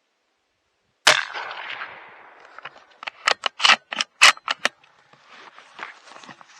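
A single rifle shot about a second in, with a short echoing tail. It is followed by a quick run of about six sharp clicks and knocks, then softer rustling.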